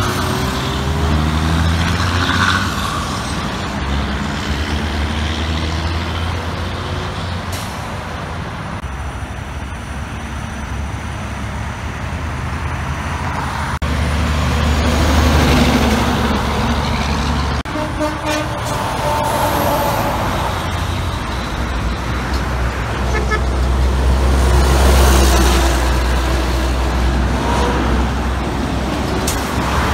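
Heavy diesel dump trucks and cars passing on a highway, with a deep engine rumble that swells twice as trucks go by.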